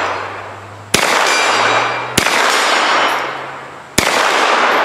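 Hi-Point 995 TS 9mm carbine firing three single shots, spaced a second or two apart, each shot echoing and trailing off.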